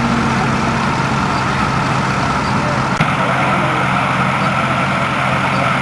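Tractor engine running steadily at idle, with a single click about halfway through.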